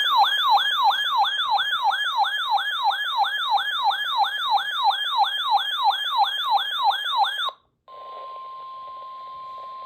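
Emergency alert tones: a loud electronic siren-like alarm that sweeps down in pitch about three times a second and cuts off suddenly, then, after a brief gap, a steady single-pitch warning tone of about 1 kHz lasting about two seconds, the weather radio alarm tone that comes before a severe thunderstorm warning broadcast.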